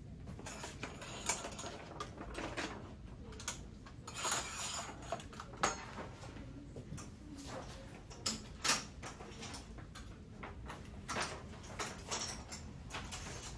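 Clothes hangers being lifted off a metal clothing rail one after another: an irregular string of clicks and scrapes of hangers against the rod.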